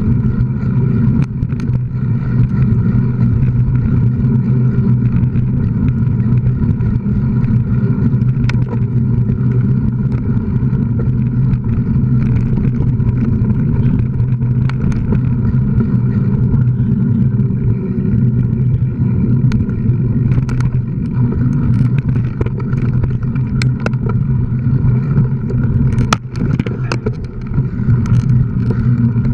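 Mountain bike ridden along a bumpy dirt singletrack, heard from a camera carried on the ride: a loud, steady drone with scattered clicks and knocks from bumps and rattles, which come thicker near the end.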